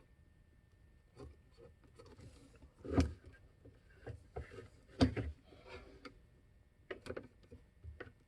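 Handling noises on the water softener: scattered small clicks and taps, with two louder knocks about three and five seconds in.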